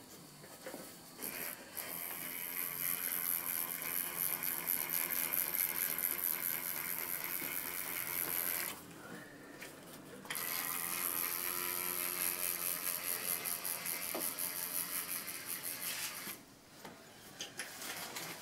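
Electric tattoo machine buzzing steadily as the needle works ink into skin, stopping twice for about a second.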